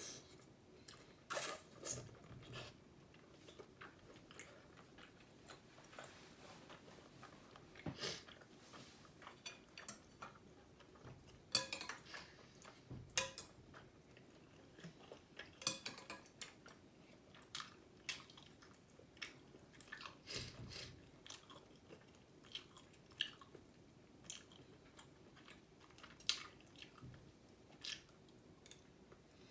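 Someone eating beef noodle soup: quiet chewing and slurping, with irregular sharp clicks of chopsticks and a metal spoon against a glass bowl.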